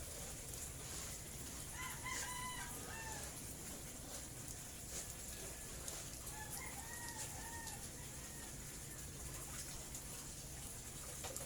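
A rooster crowing twice: one crow about two seconds in and a second, fainter one around six and a half seconds.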